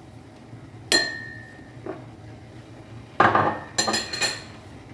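Kitchenware clinking at a pot on the boil: one sharp ringing clink about a second in, then a quick cluster of clinks and rattles a little past three seconds in.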